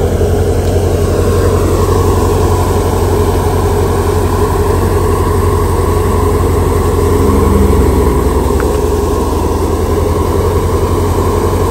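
Tractor-driven Kisan Gold wheat thresher running, a loud steady drone of the tractor engine and thresher as wheat straw is fed in and threshed.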